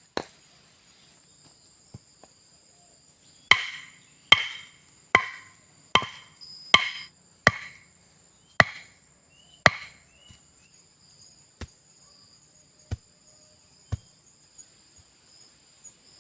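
A blade chopping wood: a run of eight sharp, ringing blows a little under a second apart, with a few single knocks before and after. A steady high-pitched insect drone runs underneath.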